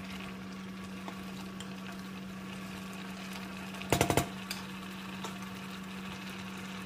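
Chicken with annatto cooking in a pan, a soft steady sizzle over a low hum. About four seconds in, a quick clatter of four or five strikes of a utensil against the pan.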